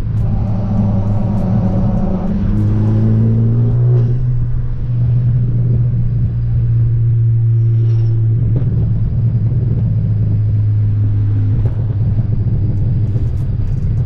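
Turbocharged car engine running with the hood removed, heard from inside the cabin while cruising: a steady low drone over tyre and road noise, fuller for the first four seconds or so, then settling.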